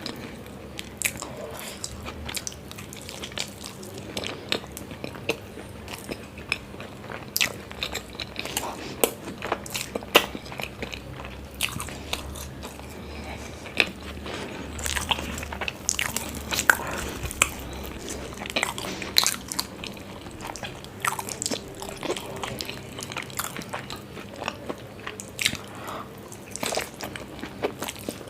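Close-miked eating: biting and chewing paratha, with frequent irregular crisp crunches and sharp mouth clicks.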